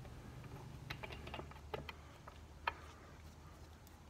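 Scattered light clicks and knocks of metal on metal as a starter motor is worked into place against the engine's flywheel housing, a quick cluster about a second in and the loudest knock a little under three seconds in.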